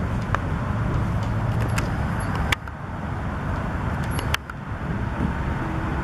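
Steady low rumble of road traffic, with two sharp clicks, each followed by a brief drop in the background noise.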